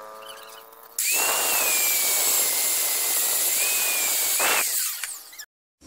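Angle grinder with an abrasive cut-off disc cutting through steel threaded rod held in a vise: it starts abruptly about a second in, with a high steady whine over a harsh grinding noise, and dies away after about four seconds.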